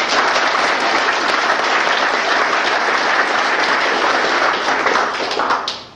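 Audience applauding: a sustained round of clapping that dies away near the end.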